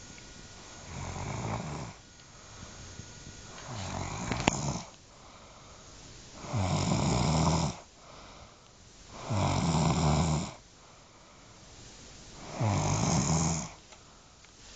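A person snoring in sleep: five snores about three seconds apart, each lasting about a second. The last three are louder, with a deep buzz.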